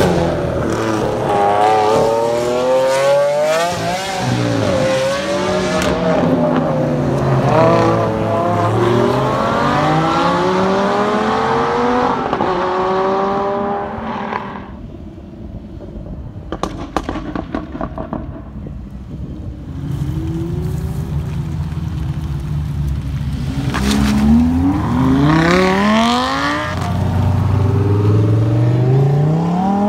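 Lamborghini supercar engines accelerating hard in several pulls, each note climbing steeply in pitch and then dropping at an upshift. A quieter stretch comes about halfway through, and near the end a Huracán Evo's V10 pulls away with the same rising notes.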